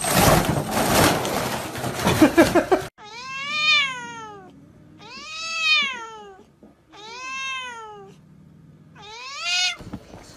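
A tabby cat meowing four times, each call about a second long, rising and then falling in pitch. It follows a loud, jumbled stretch of noise in the first three seconds.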